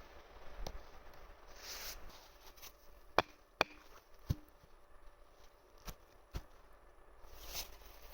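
A handful of sharp, irregular knocks and clicks, about six in all, the loudest pair a little over three seconds in, with faint brushing between them.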